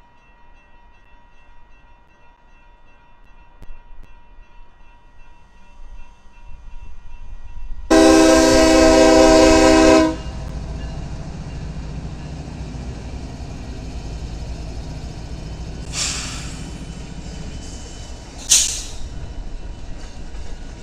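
A freight train's diesel locomotive horn sounds one loud, roughly two-second blast, a chord of several notes, as the train reaches the crossing. Then the locomotives and cars rumble past close by, with two short hisses near the end.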